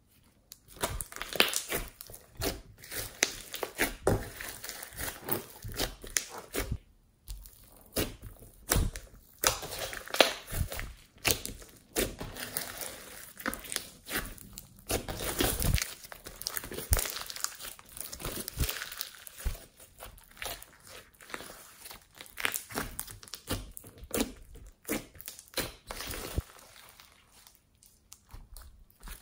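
Glossy slime mixed with small beads and glitter being squeezed, kneaded and stretched by hand, giving a dense run of irregular crackles and clicks.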